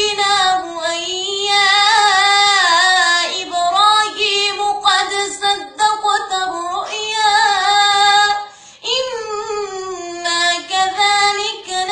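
A high solo voice singing unaccompanied: one long, ornamented melody with wavering pitch, broken by a short breath pause about three-quarters of the way through.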